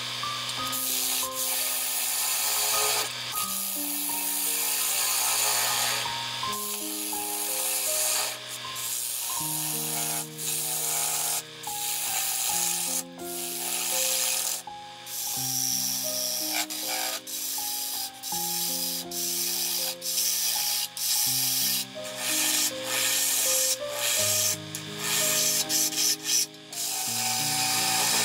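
Background music with a steady melody, over the hiss of a bowl gouge cutting the inside of a spinning sycamore bowl on a lathe. The cutting hiss breaks off briefly many times as the tool lifts between passes.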